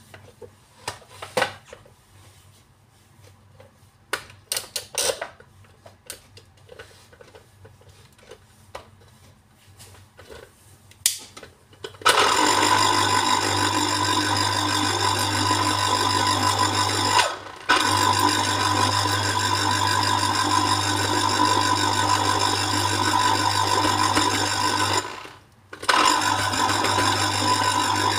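Electric citrus juicer's motor whirring steadily as orange halves are pressed down onto the spinning reamer, stopping briefly twice when the pressure is let off. Before the motor starts, a few light knocks and clicks.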